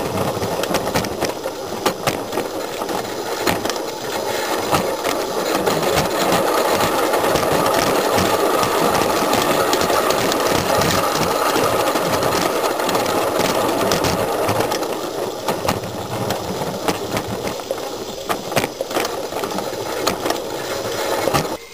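Gas-fired live-steam Mamod 0-4-2 garden-railway locomotive running, heard close up from on board: a fast, even mechanical chatter of its running gear and wheels on the track, a little louder in the middle.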